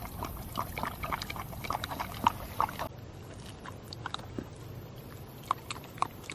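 Bernedoodle puppy lapping water from a collapsible travel bowl: a quick run of wet laps, about three a second, that stops about three seconds in, followed by a few faint scattered clicks.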